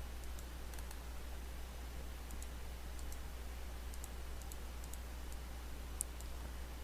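Computer mouse button clicks, scattered and often in quick pairs, with one sharper click about six seconds in, over a steady low hum.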